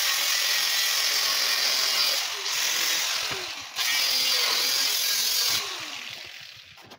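Angle grinder with a cutting disc running and cutting through the steel wall of an old CNG cylinder, a loud, steady hiss that eases briefly twice. About five and a half seconds in, the grinder is switched off and the disc winds down, fading away.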